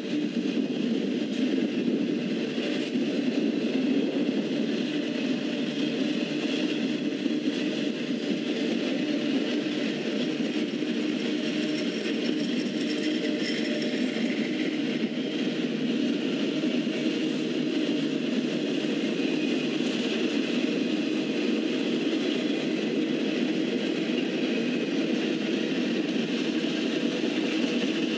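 Double-stack intermodal freight cars rolling past: a steady rumble and rattle of wheels on rail.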